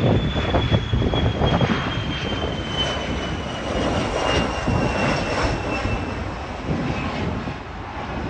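Cessna Citation X jet climbing out after takeoff, its twin Rolls-Royce AE 3007 turbofans giving a loud rumble with a high whine that slowly falls in pitch. The sound eases slightly near the end.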